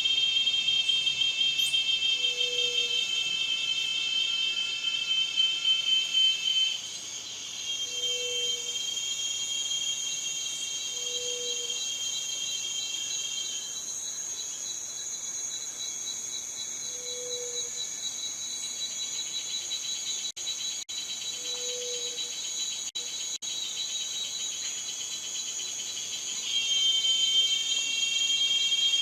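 Cicadas singing: a steady, shrill, high-pitched buzz. It drops back about seven seconds in and swells louder again near the end.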